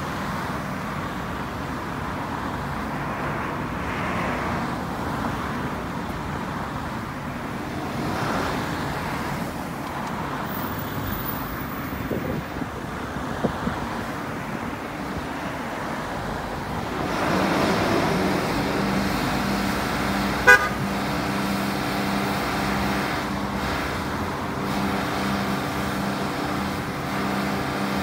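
Road traffic passing, then about two-thirds of the way through a Volvo FL fire engine's diesel engine is heard running with a steady, pulsing drone. One short, sharp toot sounds a few seconds after the engine drone begins.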